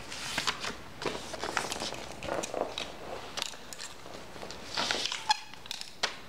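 A sheet of printer paper rustling and scraping against a wooden floor as it is folded and creased by hand, in short irregular strokes, with a sharper click about six seconds in.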